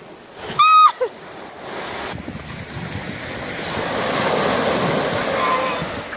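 Small sea waves breaking at the shoreline and washing up the sand, the rush of surf swelling to its loudest about four seconds in and then fading. Just under a second in, a short high-pitched cry from a child cuts through.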